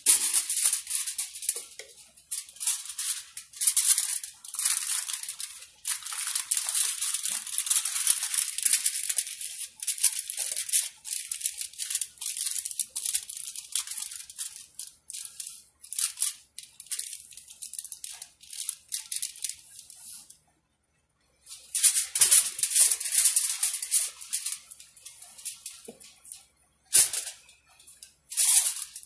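Aluminium foil crinkling and rustling in irregular bursts as it is wrapped and pressed around oval tin molds, with a brief pause about two-thirds of the way through.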